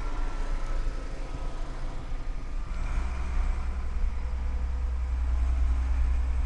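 Truck engine and road noise heard from inside the cab while driving, with a deep low rumble that grows heavier about three seconds in.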